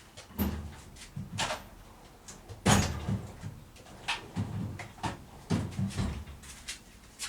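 Irregular metal knocks and clinks as a ratchet, bolts and parts are handled on a gearbox casing during teardown, about nine separate strikes with the loudest a little under three seconds in.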